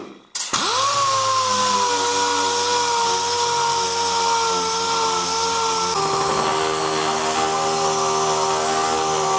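A 6-inch pneumatic random orbital sander running on oak: after a click it spins up about half a second in to a steady high whine, and about six seconds in its pitch drops a step and holds lower.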